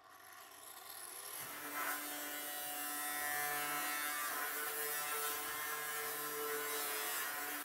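Electric angle grinder spinning up over the first second or so, then cutting through a corrugated metal roofing sheet with its cutting disc: a steady whine over a harsh grinding hiss.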